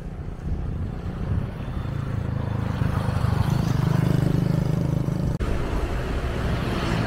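Road traffic with a motor vehicle passing close by. Its engine rumble grows louder to a peak about four seconds in, then fades.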